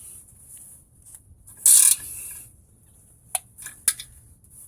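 Hand ratchet wrench clicking in a short run about two seconds in while tightening a brake caliper bolt, followed by a few light metal clicks.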